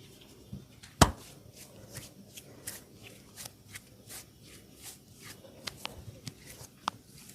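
Massage cracking sounds of hands working a person's skin and hair: one sharp, loud crack about a second in, then a string of lighter snaps and taps, two or three a second.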